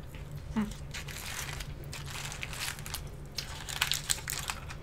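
Crunching bites and chewing of crispy fried Wingstop food close to the microphone: several crackly crunches, loudest near the end.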